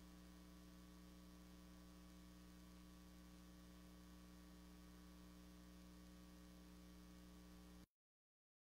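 Near silence with a faint, steady electrical hum that cuts off to dead silence near the end.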